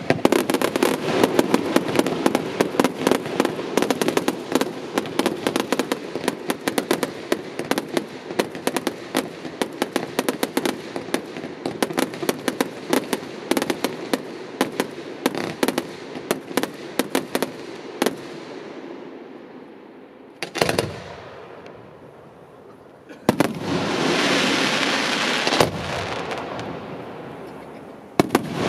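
Fireworks display: a dense barrage of rapid bangs and crackles for the first eighteen seconds or so, thinning out, then one loud bang about twenty seconds in. From about twenty-three seconds a steady hiss of crackling effects takes over.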